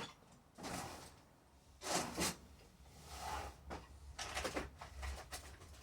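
Rummaging through small hardware: a string of short scrapes, knocks and rattles as hands search out a small copper rivet to stand in for the starter-cord pin.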